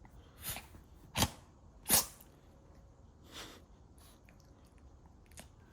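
Maltese dog sneezing several times in a row, from a nose tickled by the change of season. There is a small sneeze about half a second in, two sharp loud ones a little over a second in and at about two seconds, and a softer one at about three and a half seconds.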